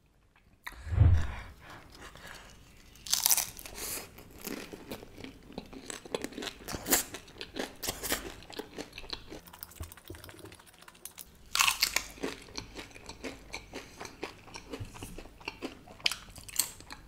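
Close-up crunching and chewing of cheese-topped tortilla chips (popcorn nachos), with sharper crunchy bites about three seconds in and again near twelve seconds.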